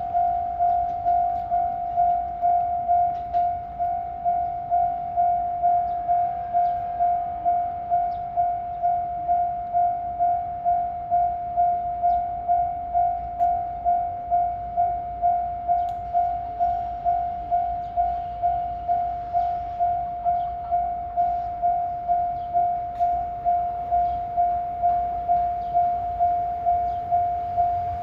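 Japanese railway level-crossing warning bell ringing: a single electronic tone struck about twice a second, each stroke fading quickly, the signal that a train is approaching the crossing.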